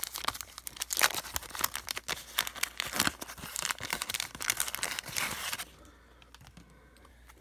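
Waxed-paper wrapper of a 1982 Donruss baseball card pack being torn open and crinkled by hand, a dense crackling that stops about three-quarters of the way through.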